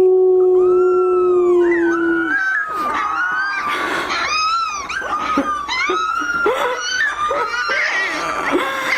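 Puppies howling: thin, high, wavering howls with yips and breaks, several voices overlapping, over a long steady low note that ends about two seconds in.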